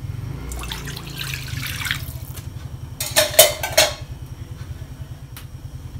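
Water running at a kitchen sink for a couple of seconds, then a quick cluster of sharp clatters of cookware about three seconds in, over a steady low hum.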